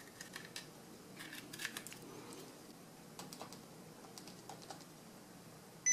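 Light plastic-and-metal clicks and taps of a Kingston DataTraveler USB flash drive being pushed into the front USB port of a mini PC, with the hand touching the case, scattered over the first few seconds. A short high blip right at the end.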